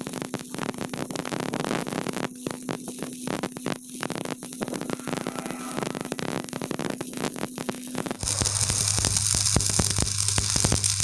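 Electric arc welding crackling, a dense irregular sizzle of small pops. About eight seconds in it changes abruptly to a louder steady hiss with a low hum.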